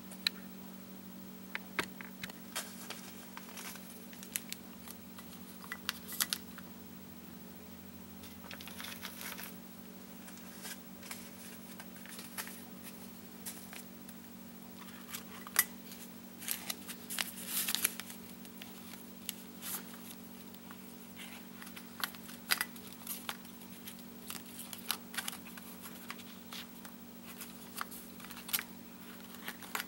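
Packaged tea bags rustling and clicking as they are handled and set upright in a ceramic dish: many small sharp ticks throughout, with a couple of longer crinkles, over a steady low hum.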